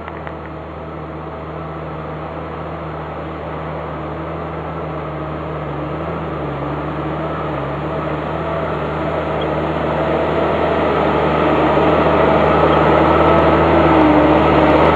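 Prinoth Bison BR350 snowcat's diesel engine running steadily, with small dips in pitch around the middle. It grows louder as the groomer approaches and comes alongside.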